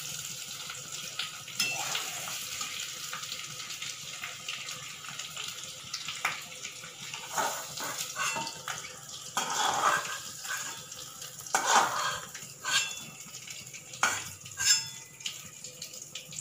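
Steamed potatoes frying in hot mustard oil with turmeric in a metal kadai: a steady sizzle, with a spatula knocking and scraping against the pan as the potatoes are lifted out, the clatters coming thickest in the second half.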